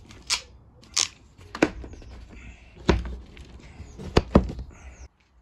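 About six sharp clicks and knocks of hand work on the wiring and fitting of recessed LED ceiling lights: a crimping tool crimping connectors onto the lights' wires, and the round light being pushed up into its hole in the wooden ceiling cladding.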